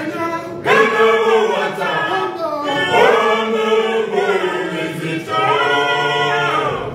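Male choir singing in harmony, in a few sung phrases; the last is a long held chord near the end.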